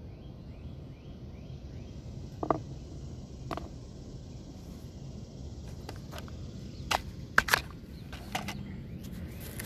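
Several sharp clicks and snaps over a steady outdoor background hiss, the loudest cluster about seven and a half seconds in.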